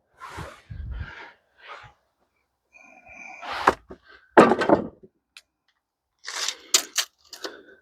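Lumber being handled on a sawmill: fresh-sawn white pine boards lifted off the cant, with scraping and several sharp wooden knocks at uneven intervals.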